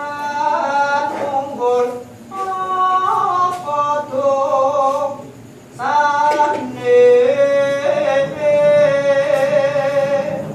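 A solo voice singing unaccompanied-sounding, drawn-out notes in three phrases, with short breaths between them about two seconds in and just past halfway.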